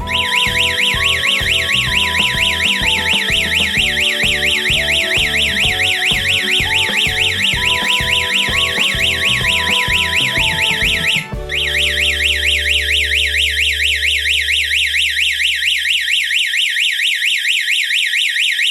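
Electronic siren of a security alarm system sounding, a loud, high-pitched warble sweeping up and down about five times a second: the alarm has been triggered. It breaks off for an instant about two-thirds of the way through, and guitar background music plays under it until then.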